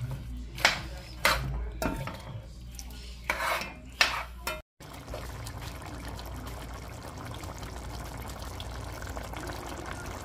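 A spoon stirring and scraping through a pot of curry chicken and peas, with about six strokes over the first four seconds. After a brief break, the curry sauce simmers in the pot with a steady bubbling hiss.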